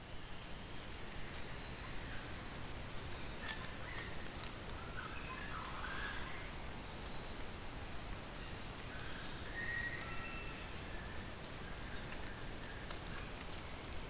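Rainforest ambience picked up by a trail camera: a steady high-pitched insect chorus over an even hiss, with a few faint short bird calls around the middle and a few light ticks from the leaf litter.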